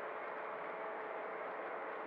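O scale model tank car train rolling along the track, heard from a camera riding on one of its cars: a steady rolling hiss with a faint, even whine underneath.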